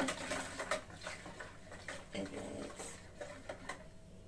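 Wire whisk clicking against a plastic mixing bowl, beating a thin yeast mixture. The ticks come quickly for about the first second, then go softer and sparser.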